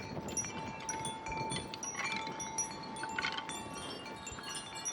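Wind chimes ringing in irregular clusters as gusts strike them, many overlapping bell-like tones that each ring on and fade, with a steady tone underneath. Gusty wind rumbles on the microphone.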